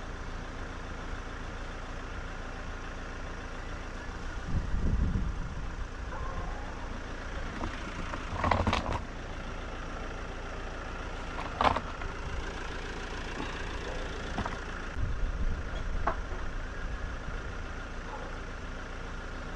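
An engine idling steadily, with a few thumps and knocks over it.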